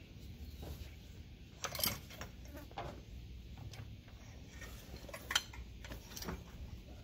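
A few scattered metallic clinks and knocks as a heavy winch on its steel mount is handled and lifted off a truck's steel flatbed. The loudest knock comes a little past the middle, with another near the end.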